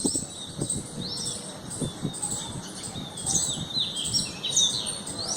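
Munias chirping: many short, high, thin chirps and squeaky notes overlapping, growing busier in the second half, with a few soft low knocks underneath.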